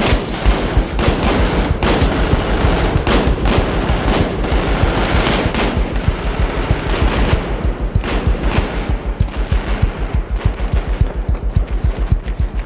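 Rapid gunfire, dense through the first two-thirds and thinning later, over a film score with a fast, steady pulse.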